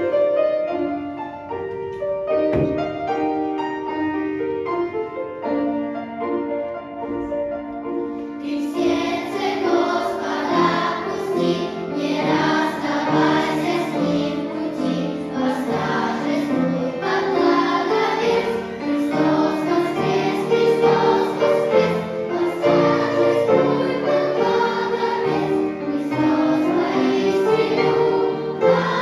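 A piano plays a slow passage alone. About eight seconds in, a choir comes in singing over the piano, in a Christian song.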